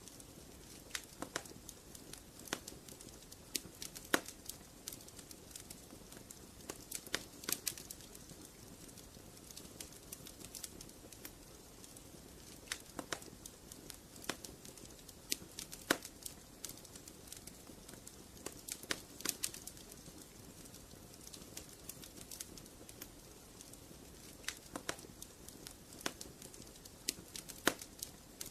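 Wood fire in a fireplace crackling: irregular sharp pops and snaps, a few of them louder, over a soft steady hiss.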